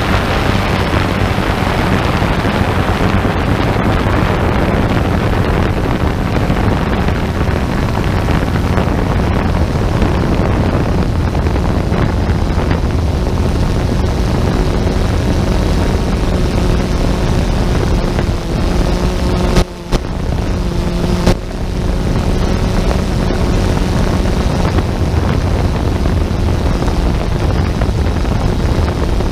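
Multirotor drone's motors and propellers humming steadily with wind rushing on the onboard microphone, the pitch of the hum shifting a little as the motor speed changes partway through.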